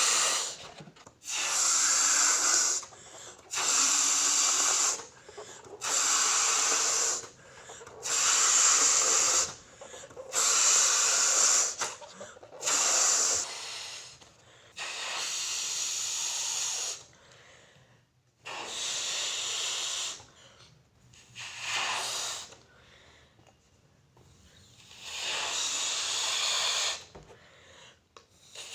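A balloon being blown up by mouth: a run of strong breathy puffs into it, about one every second and a half. About halfway through the puffs become quieter, longer and further apart.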